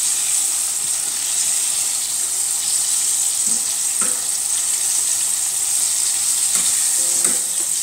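Battered chicken strips sizzling in shallow hot olive oil, a steady frying hiss. A few faint knocks come from a utensil turning the pieces in the pan.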